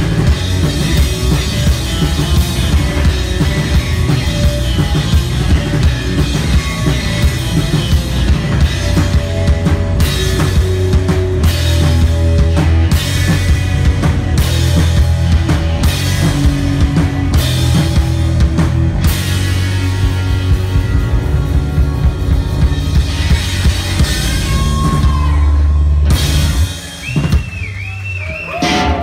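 Live rock band playing loudly: two electric guitars over a drum kit, with steady drum hits and a heavy low end. The band stops about two seconds before the end, leaving a brief high wavering tone.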